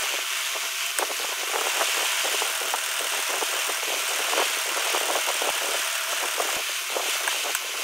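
Domestic sewing machine running steadily as it stitches a double-folded hem in cotton fabric: an even mechanical whir with light clicking throughout.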